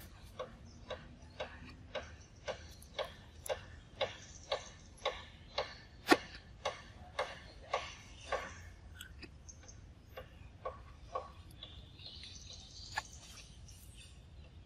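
A long-tailed macaque chewing a mango: regular sharp smacking clicks about twice a second, growing louder. They break off after about nine seconds, and a few scattered chews follow.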